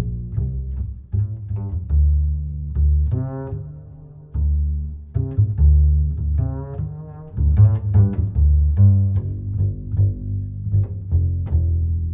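Background music of low strings, cello and double bass, mixing bowed notes with plucked pizzicato notes.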